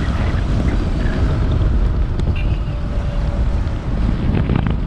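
Wind rushing over the microphone on a moving motorcycle: a steady low rumble.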